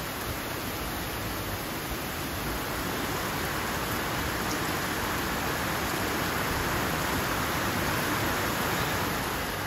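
Heavy rain pouring down in a steady hiss, growing a little louder in the later seconds.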